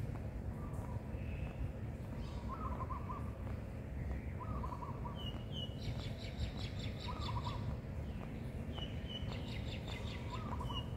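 Birds calling over a low, steady background rumble: a short wavering call repeated four times, a couple of seconds apart, and in the second half two bursts of rapid high chirping, each led by a few short single chirps.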